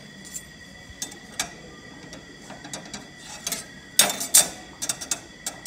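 Steel transmission clutch reaction plate being pressed and rocked on a flat steel bench, giving sharp metallic clicks and taps, loudest in a quick cluster about four seconds in. The rocking is a check for cone (dish) in the plate against a 0.040-inch maximum, and this plate is judged good.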